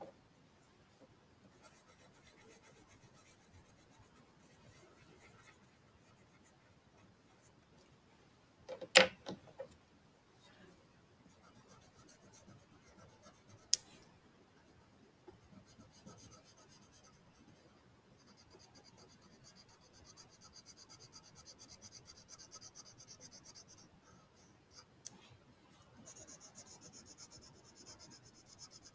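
Crayon scribbling on a paper worksheet: faint, rhythmic scratching that comes and goes and grows stronger in the second half. A brief louder knock comes about nine seconds in, and a sharp click a few seconds later.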